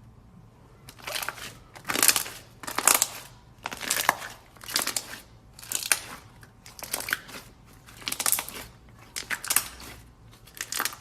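Slime being squeezed and worked by hand: about ten short squishes, roughly one a second.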